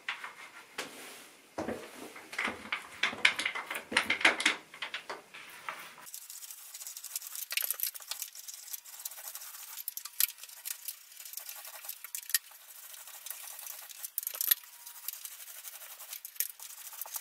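Small, thick paint roller rolling wet paint across a plaster ceiling: a sticky crackle of many fine ticks and hiss. It is fuller for the first few seconds, then thinner.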